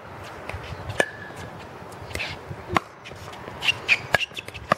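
Several sharp pops of paddles hitting a hollow plastic pickleball during a rally, spaced a second or so apart.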